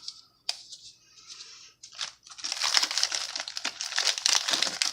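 Crinkling and rustling of small MRE accessory-pack packets being handled: a few light clicks at first, then dense, continuous crackling from about two seconds in.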